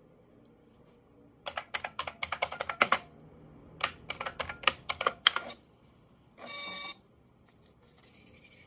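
Keys clacking on a large mechanical keyboard in two quick runs as a command is typed, then a short steady buzz of about half a second from a small receipt printer's motor printing the output.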